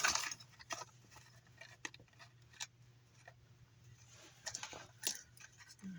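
Small parts being handled and repositioned by hand: scattered light clicks and rustles, busiest near the end, over a faint steady low hum.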